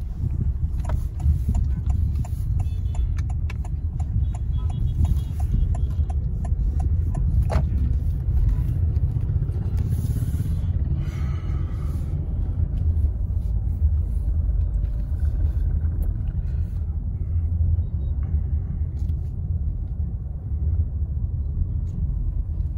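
Low, steady rumble of engine and road noise inside the cabin of a 2020 Honda City driving slowly in town. A light, regular ticking about twice a second runs through the first seven seconds or so.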